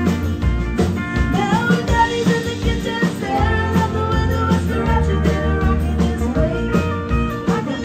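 Live country band playing with a steady beat: a female lead vocal over electric and acoustic guitars, bass guitar and drums.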